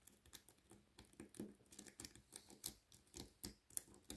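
Faint, irregular clicking and scraping of a lock pick working the five pins of a Dominic pin-tumbler cylinder held under a tension wrench, a few clicks a second.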